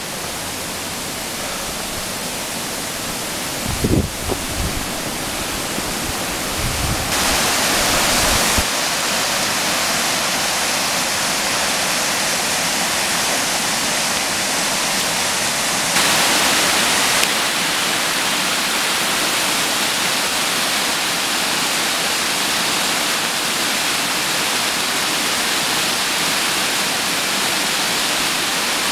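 Small mountain creek rushing steadily over rocks in white-water cascades. A few low buffets of wind on the microphone come about four and seven seconds in.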